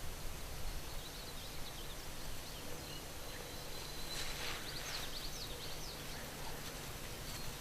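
Small birds chirping in many short, quick notes over a steady low background rumble.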